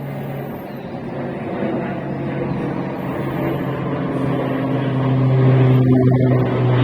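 An engine running with a steady low hum, growing louder, with a higher steady tone joining about four seconds in.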